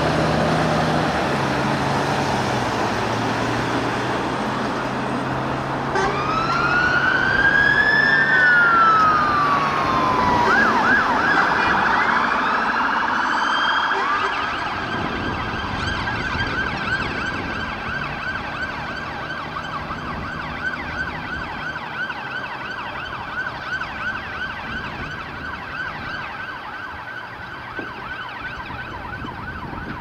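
Heavy vehicle engine running, then an emergency vehicle siren starts about six seconds in: one slow wail rising and falling, then a fast yelp that carries on and slowly fades.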